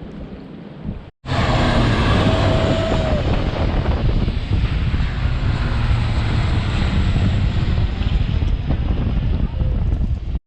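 Strong wind buffeting the microphone: a loud, steady rumble with hiss that starts abruptly after a brief dropout about a second in.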